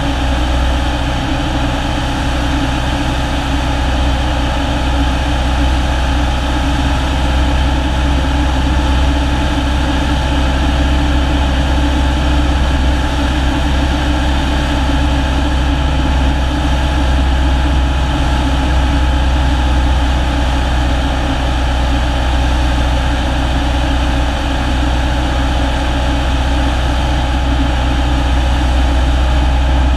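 Cessna's single piston engine and propeller running steadily in flight, a constant drone heard from inside the cabin.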